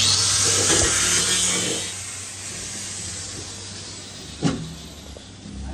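A small cordless cutting tool cutting through sheet metal with a harsh, noisy hiss for about two seconds, then tapering off. A single knock comes about four and a half seconds in.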